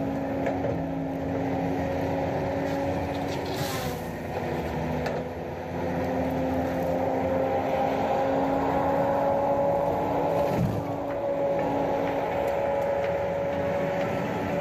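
Heavy forestry machine's diesel engine running steadily at high revs, its pitch holding nearly level with small dips about four and ten seconds in.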